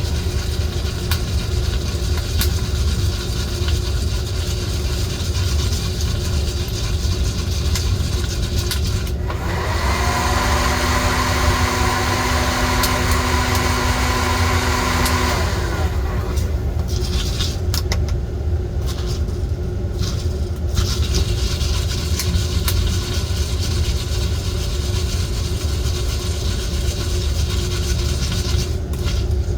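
Coffee roaster running steadily, its motor, fan and burner giving a continuous low rumble with faint clicks. A steady hum comes in about ten seconds in and stops about five seconds later.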